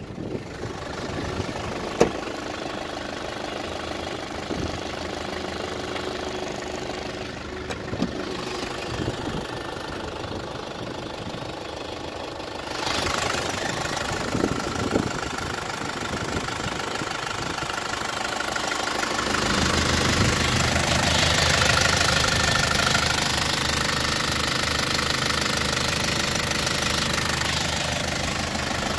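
Isuzu 4BJ1-T 2.8-litre direct-injection turbo-diesel idling steadily, heard under the open hood. It gets louder about halfway through and again about two-thirds of the way in.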